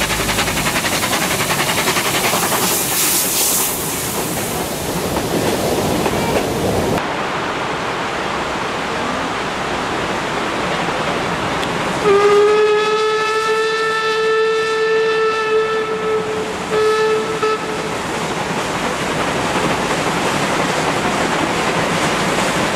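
Steam locomotives working a train, a dense, steady rush of exhaust and running noise. About halfway through, a steam whistle gives one long steady blast of about four seconds, then a short toot.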